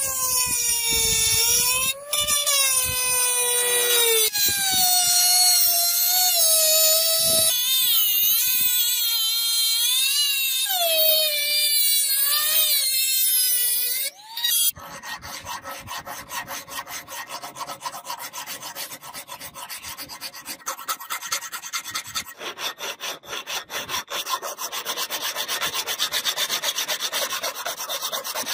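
A small handheld rotary tool with a round grinding bit whines at high speed against a steel katana blade, its pitch dipping and rising as it is pressed into the metal. It cuts off about halfway through, and a hand file is then stroked quickly back and forth along the blade's edge, a steady run of scraping strokes.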